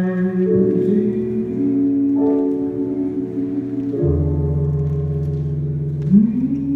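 Slow music with long held notes; a deep bass note comes in about four seconds in, and the melody slides up in pitch near the end.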